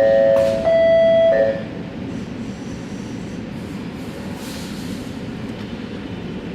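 Sydney Metro Alstom Metropolis train's door-closing warning tones, alternating between two pitches and stopping about a second and a half in. After that comes a steady rumble of the train at the platform as it gets ready to depart.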